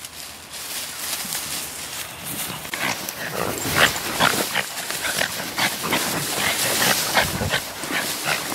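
French bulldogs making repeated short noises as they pull on their leashes through dry grass. The sounds come thick and irregular from about three seconds in.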